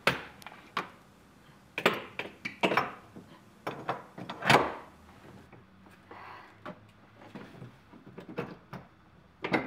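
Metal tubular X-brace being set into place and handled against a car body: a series of separate knocks, clunks and light rattles at uneven spacing, the loudest about four and a half seconds in.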